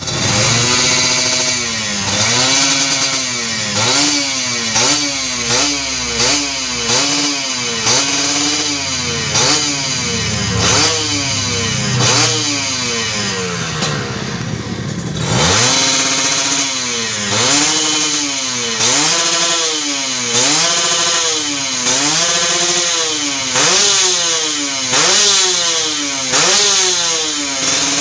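Kawasaki Ninja 150 RR's two-stroke single-cylinder engine revved in short throttle blips, about one a second. Around halfway it sinks toward idle, then the blips start again.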